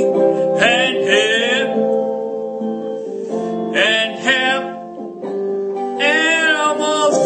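Background music: a song with guitar and a voice singing in phrases over held notes.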